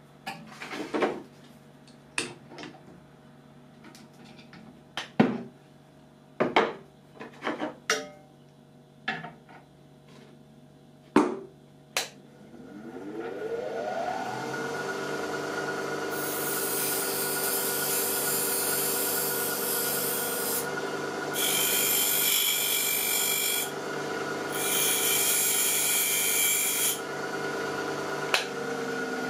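Sharp metal clicks and knocks as the wheel nut is tightened and tools are handled. About twelve seconds in, the bench grinder motor switches on, rises to speed and runs with a steady hum. Steel is then ground against the freshly balanced abrasive wheel in three stretches of hissing grinding, with short pauses between them.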